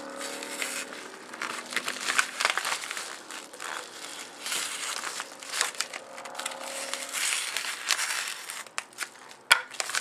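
A knife slitting open a padded paper bubble mailer, the paper crinkling and crackling as hands press and work the envelope, with a sharp click near the end.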